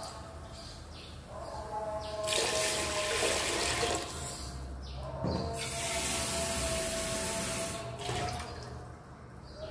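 Water running into a cooking vessel in two spells, about two and five and a half seconds in, with a steady tone beneath.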